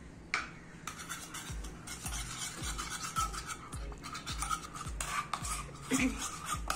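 Stirring a wet face pack paste of gram flour, turmeric, honey and milk in a bowl: repeated scraping strokes about twice a second, starting about a second and a half in.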